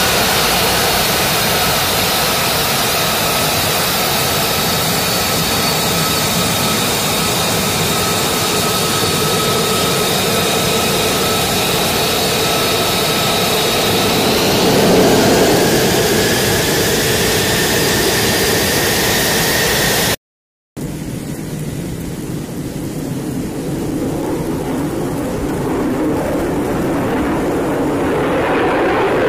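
F-35A Lightning II's single F135 turbofan taxiing: a steady jet whine with high whistling tones, one of them gliding upward about halfway through. After a brief dropout, a more distant jet rumble grows louder toward the end as the aircraft climbs away.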